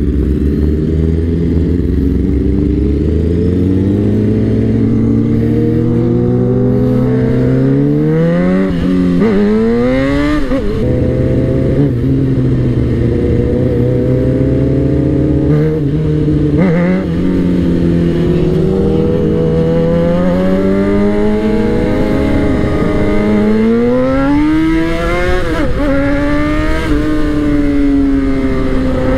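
Suzuki GSX-R 600's inline-four engine under way, heard from the rider's seat: the engine note climbs with the revs and drops sharply at each upshift, several times, with steadier cruising stretches between.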